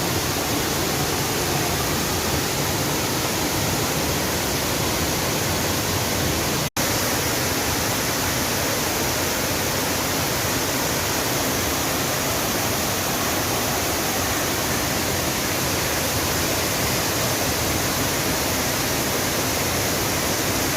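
Steady rushing of falling water, even and unbroken, with a split-second dropout about seven seconds in.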